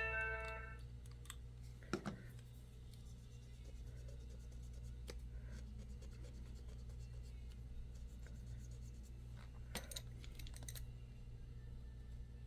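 Faint, sparse clicks and light scratching of small work on a laptop connector as it is cleaned, over a steady low hum. A brief ringing tone sounds right at the start.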